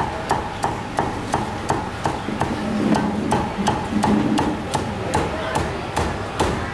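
A butcher's tool knocking on pork against a wooden chopping block in an even, steady rhythm of about three sharp knocks a second.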